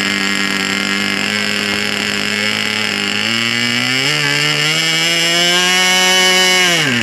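Small two-stroke model airplane engine running on the ground with its propeller spinning, while its carburettor is being adjusted. The note shifts a little past three seconds and climbs slightly, then falls steeply and the engine stops near the end.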